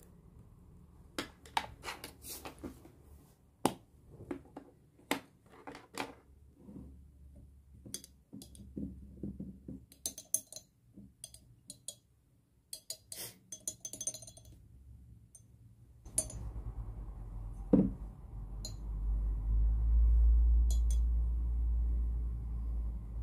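Light clicks and clinks of watercolour supplies being handled: a glass water jar and a metal palette tin set down and moved. About two-thirds through, a low rumble sets in and grows louder, with one heavier thump shortly after it starts.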